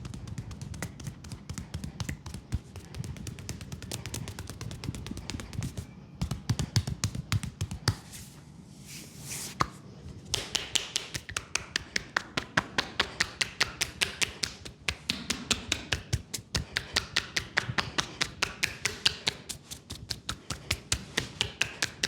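Percussive tapping massage on a leg: softer patting and rubbing at first, then from about halfway through a quick, steady run of sharp taps at about five a second.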